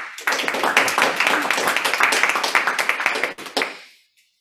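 Audience applauding, a run of many claps lasting about three and a half seconds before it fades out.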